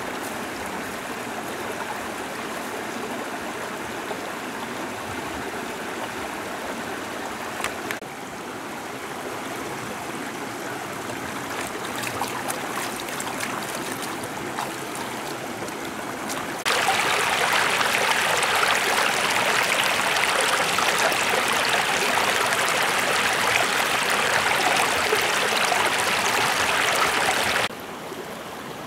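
Shallow rocky stream running over stones in a steady rushing, burbling wash. It turns louder and brighter a little past halfway, then drops back suddenly near the end.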